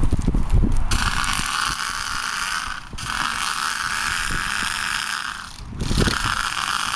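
Piper's Precision Strafer Mk4 airsoft minigun, running on high-pressure air, firing sustained full-auto streams of BBs at about 100 rounds a second, so the shots merge into a continuous mechanical buzzing rattle. Three long bursts with short breaks between them, starting about one, three and six seconds in, after low rumbling noise in the first second.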